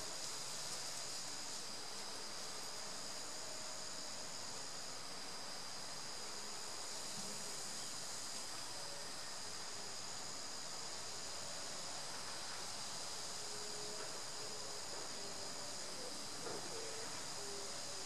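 Steady high-pitched insect chorus, with a second, higher insect trill that starts and stops every few seconds.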